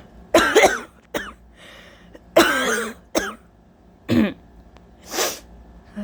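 A person coughing from allergies: a run of about six separate coughs, the two longest and loudest about half a second and two and a half seconds in, with shorter ones between and a breathy one near the end.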